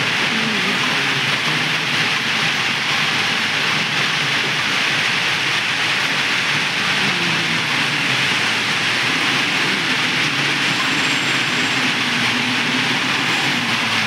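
Diesel engines of an ACE 4×4 backhoe loader and a tipper truck running, the engine note shifting a little in pitch as the loader drives up with its front bucket raised, under a steady loud hiss.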